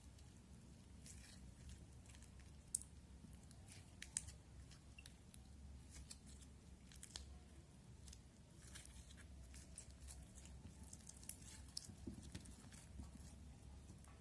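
Faint, irregular crackling and clicking of slime with Orbeez beads in it being squeezed and played with, over a steady low hum.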